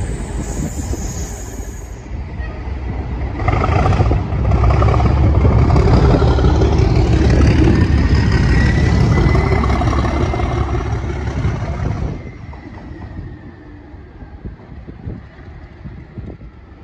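Class 37 diesel locomotive passing close at speed, its English Electric V12 diesel engine and wheels on the rails loud as it goes by, with a thin high whistle over the engine. The sound swells a few seconds in and drops away sharply as the locomotive runs off into the distance.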